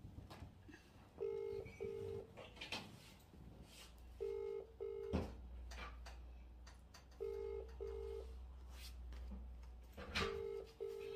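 Phone ringback tone of an outgoing call not yet answered, played through the phone's loudspeaker: a British-style double ring, two short low tones repeating about every three seconds, four times. A single sharp click comes about five seconds in.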